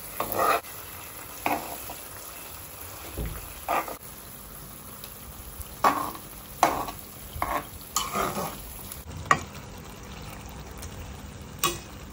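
Quail pieces being flipped in a speckled nonstick frying pan with a metal spatula: about ten short scrapes and knocks of the spatula against the pan, over a steady sizzle of the frying masala.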